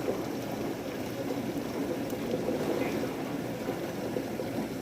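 Heavy storm rain pouring down, a steady, even rushing hiss with a dense patter.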